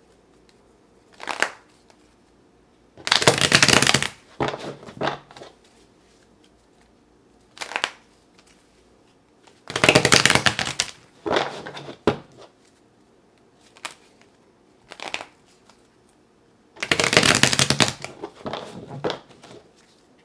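A tarot deck being riffle-shuffled on a table. There are three riffles about seven seconds apart, each a second of fast card flutter, followed by shorter, softer rustles as the cards are bridged and squared.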